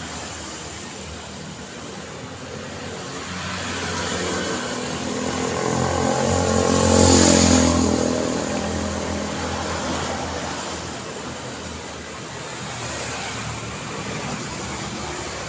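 Steady road traffic, with one vehicle passing close by. Its engine and tyre noise swells to a peak about halfway through and then fades, and a smaller swell follows near the end.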